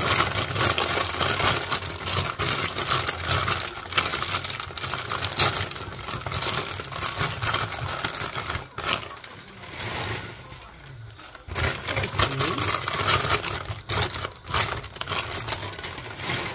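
Crinkling and rustling of a plastic bag of dried tagliatelle nests as it is pulled open and handled. It crackles densely, eases off for a couple of seconds about nine seconds in, then crinkles again.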